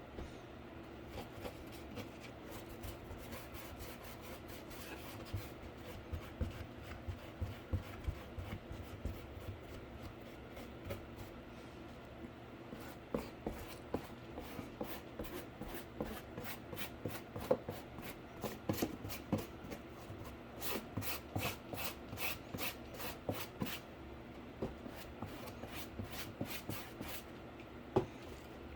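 Paint being applied to a cardboard PC case in short rubbing, scratchy strokes, speeding into a quick even run of about three to four strokes a second for a few seconds, with a single sharp tap near the end.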